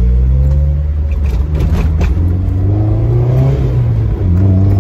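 Honda S2000's four-cylinder engine pulling from inside the open-top cabin, revs climbing and dropping back twice as it shifts up, over wind and road rumble. The freshly swapped transmission shifts with no gear grinding.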